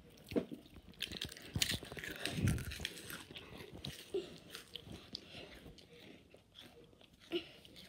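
A child biting into and chewing a crisp chip right by the microphone: a run of small crackling crunches, thickest in the first three seconds, thinning to fainter chewing afterwards.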